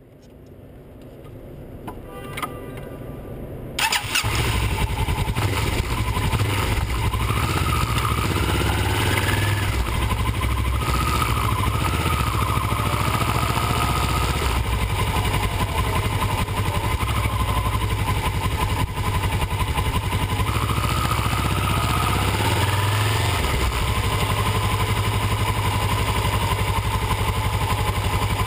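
Vehicle engine running with a steady low rumble, coming in suddenly about four seconds in after a faint start.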